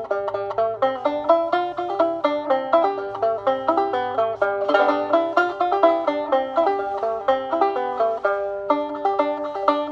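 Solo banjo played as a tune: a quick, steady stream of picked notes, each ringing briefly.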